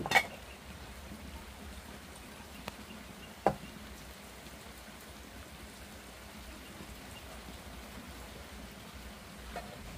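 A few sharp knocks or taps, the loudest just after the start and a second clear one about three and a half seconds in, over a steady low background hiss.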